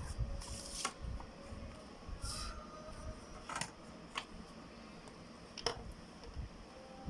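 Pencil scratching across paper in two short strokes, followed by three or four light clicks and taps of drawing instruments on the sheet.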